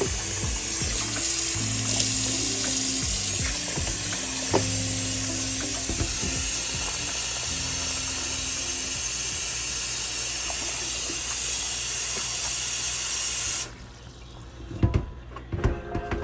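Kitchen tap running steadily into the sink while meat is rinsed under it; the water shuts off abruptly near the end, followed by a few knocks and clatters. Background music with sustained low notes plays underneath for the first part.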